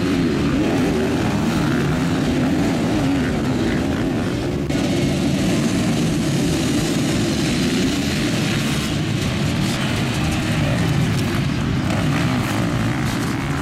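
A pack of motocross bikes racing together, many engines running and revving at once and overlapping into one continuous loud sound.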